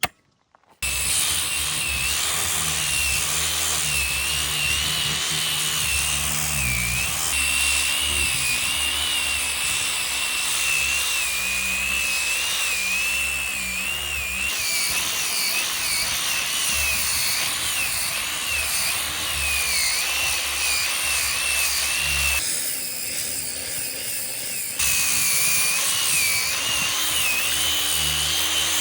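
Woodworking power tool cutting wood: a steady, loud machine noise with a high whine that wavers in pitch as the load changes. It starts abruptly about a second in and goes lighter for a couple of seconds about three-quarters of the way through.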